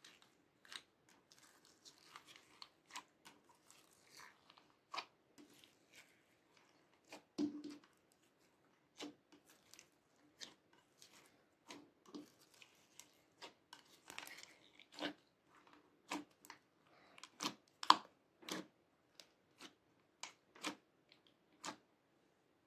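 Hands squeezing and folding sticky slime studded with foam beads in a glass dish: irregular wet squelches and sharp sticky pops, with softer crackling in between. The loudest pop comes about eighteen seconds in.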